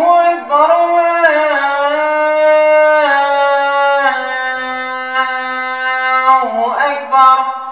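A man's unaccompanied voice chanting the adhan, the Islamic call to prayer, in one long drawn-out phrase. The pitch steps slowly downward with ornamented turns before it fades out at the end.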